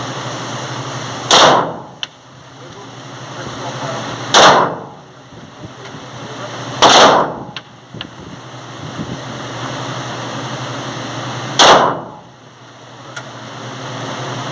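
Four single shots from a Glock 17 Gen 5 9mm pistol firing reloaded ammunition, a few seconds apart with a longer gap before the last, each followed by a short echo.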